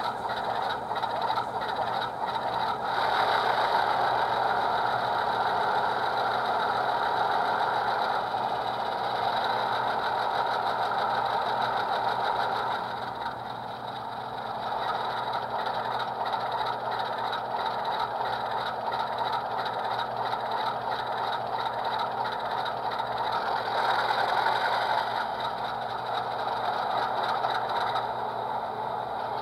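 HO-scale model diesel locomotive's sound decoder playing a diesel engine sound through a small onboard speaker. It grows louder about three seconds in, eases back around thirteen seconds, and swells again near twenty-four seconds.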